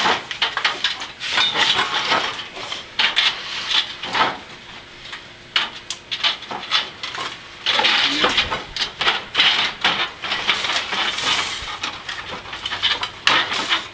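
A heavy metal robot frame being manhandled onto wooden stands: irregular clanks, rattles and knocks of metal parts against each other and against wood.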